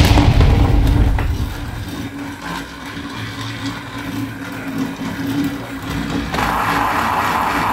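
Battery-powered TrackMaster Diesel toy train. It opens with the loud tail of the burst as the tunnel's rock pieces are blasted off and clatter away. The toy's electric motor then runs with a steady whine around the plastic track, turning louder and rougher about six seconds in as the train reaches the tunnel section.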